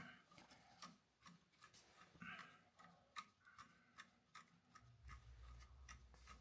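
Near silence with faint, irregular clicks and ticks, and a faint low hum coming in about five seconds in.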